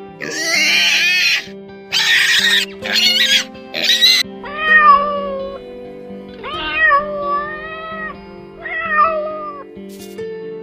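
Domestic cats yowling at each other in a standoff: three long, wavering yowls in the second half. Before them come four shorter, harsher screeching cries. Soft guitar music plays underneath.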